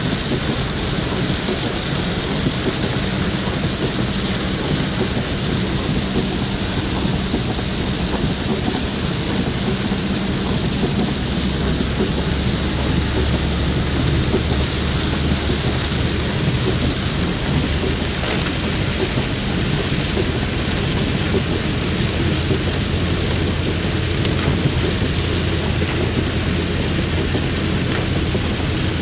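Heavy rain falling steadily on a car, heard from inside the cabin, with a steady low hum from the car running underneath.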